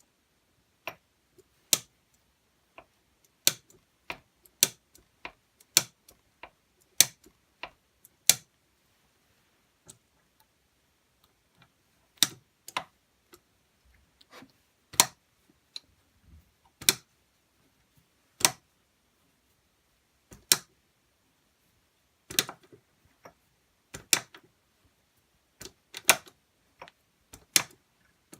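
Perfecto hand shaper being worked by hand: sharp metal clicks of its auto-advance feed ratchet, coming at irregular gaps and sometimes in pairs. The ratchet feed is hit and miss, which the owner puts down to play in the ratchet gear on its key.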